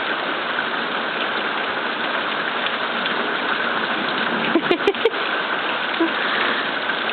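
Steady rain falling and pattering on surfaces, a constant hiss of noise. About two-thirds of the way through, a quick cluster of sharp clicks cuts through the rain.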